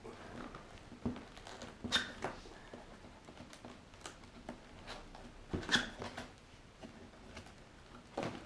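Cardboard box being handled and opened by hand: scattered rustles, scrapes and light knocks of the cardboard, with sharper scrapes about two seconds in, around five and a half seconds, and near the end.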